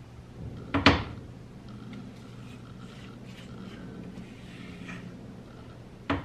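Spatula scraping cake batter out of a stainless steel mixing bowl into a glass baking dish, with a sharp knock of utensil on bowl about a second in and a smaller one near the end.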